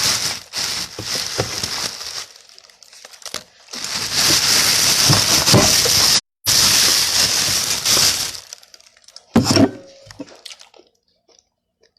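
Rustling and crinkling of a takeout bag and food packaging being rummaged through, in spells of a few seconds with short pauses, and a sharp knock about nine and a half seconds in.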